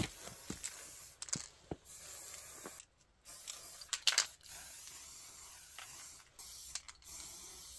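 Aerosol spray paint can hissing in short bursts, broken by a few abrupt gaps of silence.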